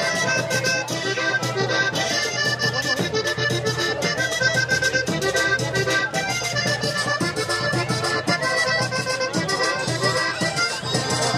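Accordion playing a fast melody in Panamanian típico style over a quick, steady percussion beat.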